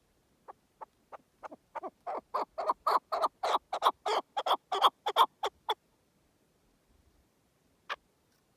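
Keklik partridge calling: a run of about twenty short clucking notes that start slow and quiet, then come faster and louder before stopping about six seconds in, followed by two single notes near the end.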